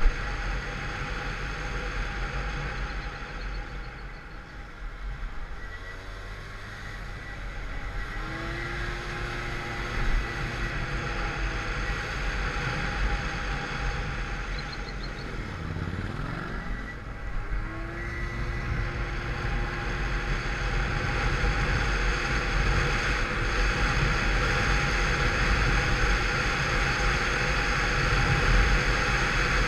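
Peugeot Vivacity 50cc scooter engine running on the move, derestricted through its variator and rollers, with wind rushing past. The engine note drops and climbs back about halfway through, and the engine and wind get louder toward the end.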